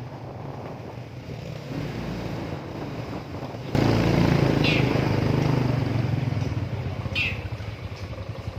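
Motorcycle engine running under a passenger on a motorcycle taxi, jumping suddenly louder a little over a third of the way in. Two short high chirps come later.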